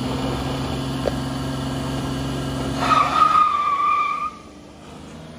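Vehicle engine revved up and held at high, steady revs in a burnout attempt, with a tire squealing about three seconds in for just over a second before the sound cuts off suddenly.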